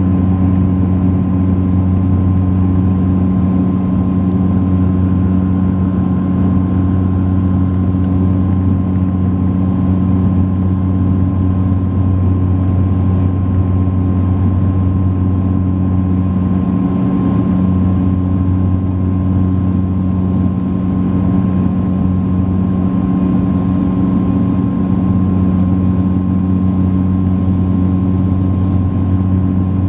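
Cabin drone of a Saab 340B in flight: its two turboprop engines and propellers give a steady low hum, with a thin, constant high whine above it.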